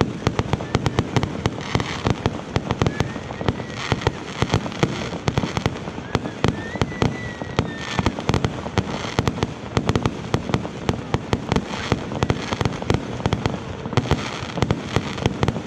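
Fireworks display: a dense, unbroken barrage of bangs and crackles, several reports a second.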